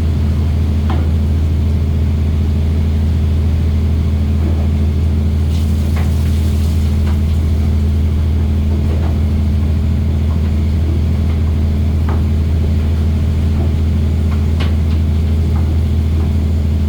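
Fishing boat's engine running steadily with a low hum, with a few short knocks and clatter now and then.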